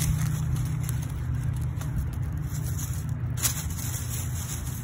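Hands scraping soil and rustling dry fallen leaves while firming earth over a freshly planted bulb, with a few short crackles, over a steady low rumble.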